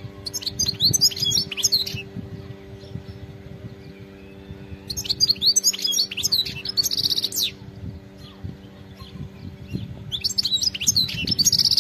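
European goldfinch singing: three bursts of rapid, high twittering notes separated by pauses of a few seconds, the second and third each including a short buzzy trill.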